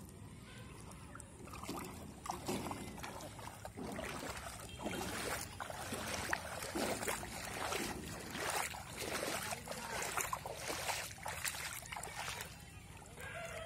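Bare feet wading through shallow river water, an irregular run of splashes and sloshes with each step.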